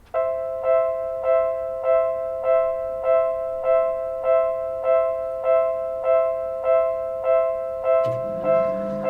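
Japanese railway level-crossing warning alarm starting up: an electronic two-tone bell striking evenly, about one and a half strikes a second. About eight seconds in, a click and a lower steady hum join it.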